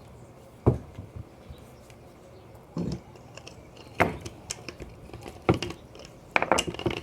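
Scattered knocks and clicks of Play-Doh tools being handled on a table: single sharp taps about a second in, at four and at five and a half seconds, a short scrape near three seconds, and a quick run of clicks near the end.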